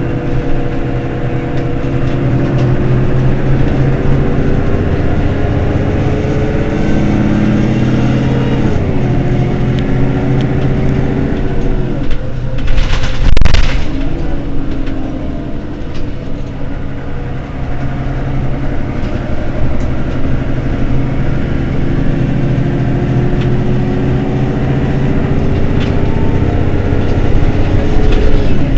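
Mercedes-Benz Citaro city bus engine pulling under load, its pitch rising slowly and then dropping at gear changes about eight seconds in and again near the end. About thirteen seconds in, a loud rush of noise lasting about a second sounds over a dip in the engine note.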